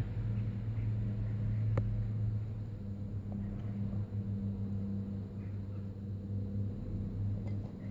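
A steady low hum at two pitches, one about twice the other, with a faint click just under two seconds in.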